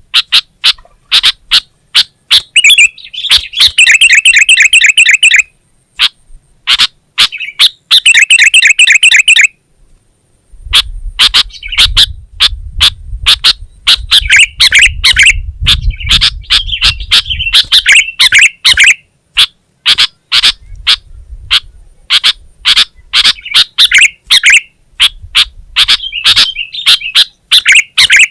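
Sooty-headed bulbul singing busily: a fast run of sharp chirps broken by short rapid rattling trills, with a brief pause near the middle. A low rumble sits under the song for several seconds after the pause.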